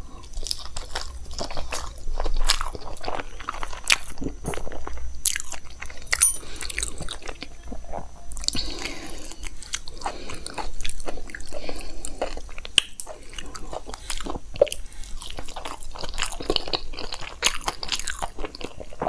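A person chewing soft khandvi, a rolled gram-flour snack, close to a lavalier microphone: irregular wet mouth clicks and smacks.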